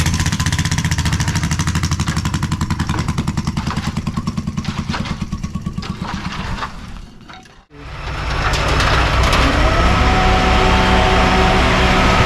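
Concrete mixer truck's diesel engine running with a fast, even pulsing. It cuts off suddenly a little past halfway, then comes back as steadier running with a whine that rises briefly.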